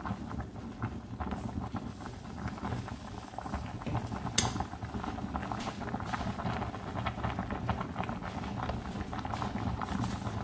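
A pot of spaghetti at a rolling boil, the foaming water bubbling steadily with many small pops. A single sharp click comes about four seconds in.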